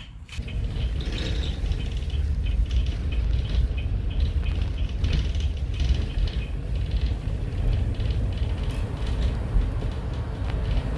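Inside a bus: a loud, steady low rumble of engine and tyres that rises sharply within the first second as the bus pulls away and drives on, with light rattling above it.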